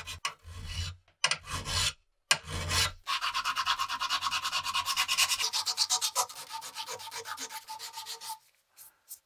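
Hand filing and sanding of the steel blade of an M1 Garand bayonet held in a vise: quick back-and-forth rubbing strokes, about five a second. They come in several short stretches with brief gaps between them; the longest runs from about three seconds in to just past eight seconds.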